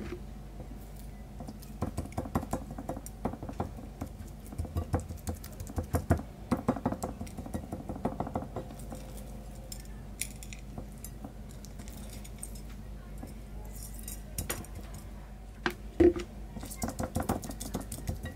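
Hands working oil and salt into raw beef steaks on a ceramic plate: a run of small taps and clicks of meat and plate, with a louder knock about 16 seconds in. A steady low hum runs underneath.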